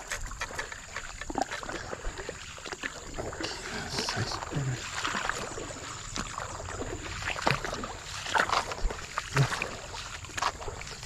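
Shallow stream water splashing and sloshing in irregular bursts, with scattered clicks and knocks, busiest near the end. A steady high-pitched whine runs underneath.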